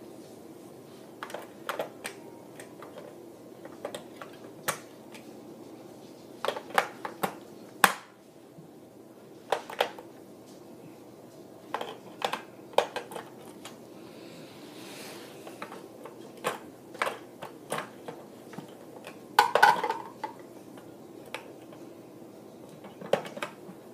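Irregular sharp plastic clicks and knocks from handling a Nerf Stryfe blaster while fitting AA batteries into it, with a louder cluster of clicks about three-quarters of the way through.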